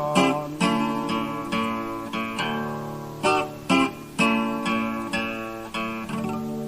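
Acoustic guitar strumming the closing bars of a folk song, about two strums a second, ending on a chord that rings out and fades near the end.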